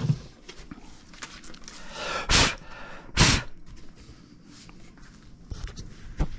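Two quick, forceful puffs of breath, a little under a second apart, blowing drilled wood chips off a cabinet door, with light knocks and clicks as the door is handled.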